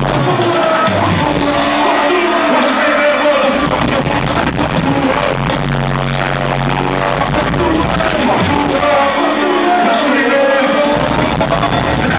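Live rap-rock concert music played loud over a venue PA, with a deep bass line that cuts out for a few seconds and comes back, twice.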